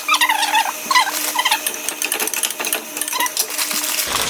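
Spices frying in a pan: a steady sizzle with many small clicks and scrapes from stirring. A high warbling tone sounds over the first second and a half.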